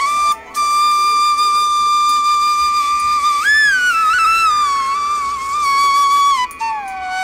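Background music: a single flute-like melody of long held notes with short ornamental turns, stepping down to a lower note near the end.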